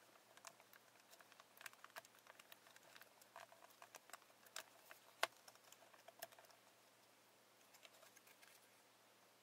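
Faint, irregular small clicks and taps of fingers handling a wine-cork popper lure and its wire, with one sharper click about five seconds in and only a few scattered ticks near the end.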